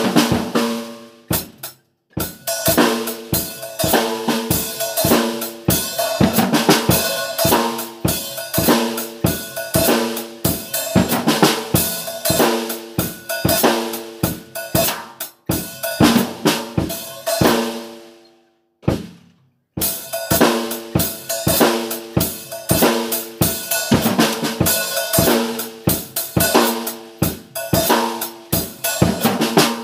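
Background music: a drum-kit beat with steady pitched chords over it, stopping briefly about two seconds in and again just before the twenty-second mark.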